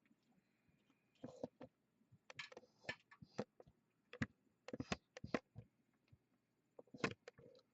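Irregular clicks and small knocks of power-supply cables and plastic connectors being handled and pushed into place inside a PC case.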